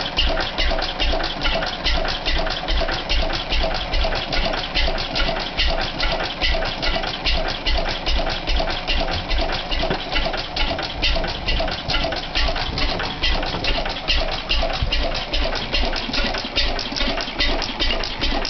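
Crossley 1065 open-crank, hopper-cooled stationary engine running at a steady beat, with a quick clatter of clicks from the engine over it.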